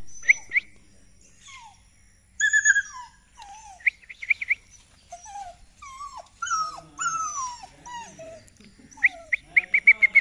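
Muzzled greyhound puppies whining and whimpering: high-pitched cries that slide downward in pitch. Quick runs of short high yips come about four seconds in and again near the end.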